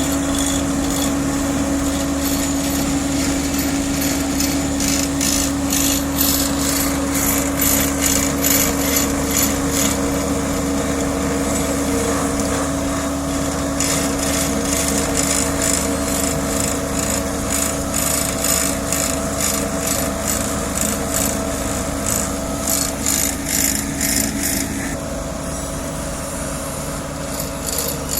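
Asphalt paving machinery at work: a diesel engine running steadily under repeated rasping, scraping strokes that come in dense runs, then ease off near the end.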